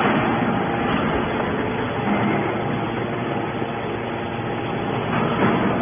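Hydraulic scrap metal baler running steadily as its ram pushes a compressed bale of metal turnings out of the chamber, with a short louder rush near the end.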